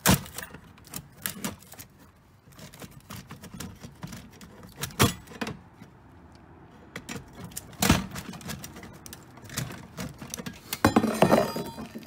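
Metal clanks and rattles from an old payphone being bent and pried at: a few sharp knocks spread apart, with a burst of clattering near the end.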